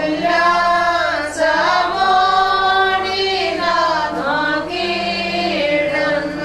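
A group of voices, women's most prominent, singing a slow Christian funeral hymn in long held notes that glide from pitch to pitch.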